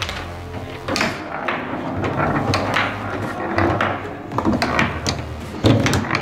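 Foosball table in play: irregular sharp knocks and clacks as the small ball is struck by the plastic figures on the steel rods and the rods are jerked in their housings, with a louder knock near the end.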